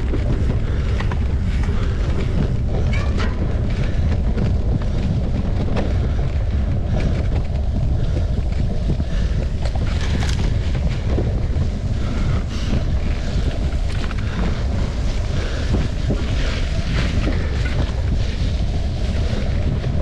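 Wind buffeting the microphone of a mountain bike rider's camera while riding, a loud steady low rumble, with frequent scattered clicks and rattles from the bike on the rough trail.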